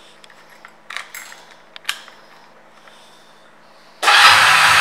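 A few light clicks as the ignition key and switches of a 2004 Honda Nighthawk CB250 are worked. About four seconds in, its air-cooled parallel-twin engine starts and runs loudly.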